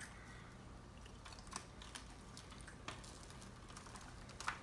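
Metal fork and knife clicking and scraping against a plate while cutting into a fried lobster tail: a few sharp, sparse clicks, the loudest near the end.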